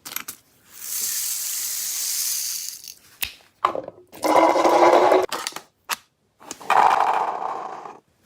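Electric gel blaster running in two whirring bursts of about a second each, with sharp clicks between, after a high hiss lasting about two seconds.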